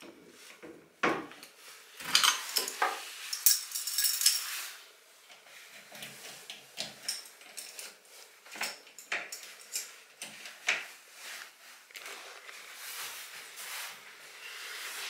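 Keys jangling and scraping in a door lock, with repeated metallic clicks and rattles as someone struggles to get the door open. The clatter is loudest about two to five seconds in, then turns into scattered fainter clicks.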